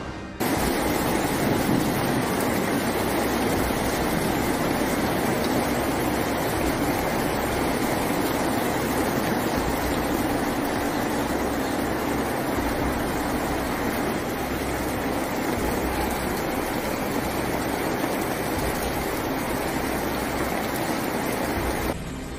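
Hail pelting a street and parked cars, a dense, steady hiss that starts abruptly just after the start and cuts off just before the end.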